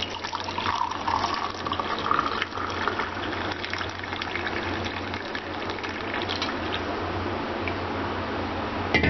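Chicken stock poured through a stainless steel mesh strainer into a ceramic mug: a steady splashing pour, with a note that rises in pitch during the first couple of seconds as the mug fills. A short knock near the end.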